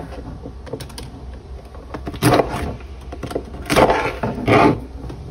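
Kitchen knife working into a live blue crab's shell against a sink to kill it: a few light clicks, then three or four short scraping crunches.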